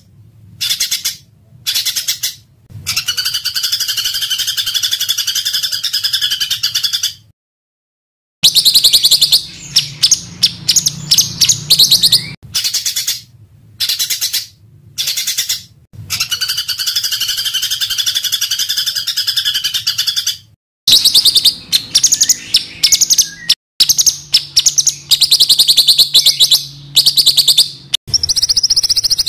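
Small songbirds singing dense, rough bursts of rapid-fire high notes, played as spliced segments that start and stop abruptly, with a second of silence about seven seconds in.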